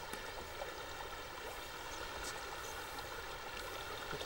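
Steady outdoor ambience: an even rushing hiss with a few faint ticks.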